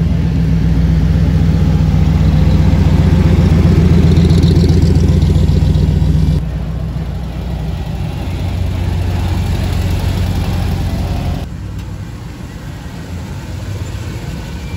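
A Shelby Cobra-style roadster's V8 runs with a loud, steady low rumble as it rolls slowly past. The sound cuts off abruptly about six seconds in, and a quieter engine keeps running steadily; the level drops again near the end.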